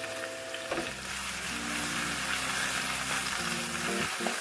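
Slices of tofu and portobello mushroom sizzling steadily in a nonstick frying pan with olive oil and tamari.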